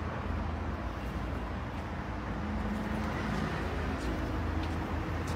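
Steady low outdoor rumble of distant road traffic, with a few faint ticks in the second half.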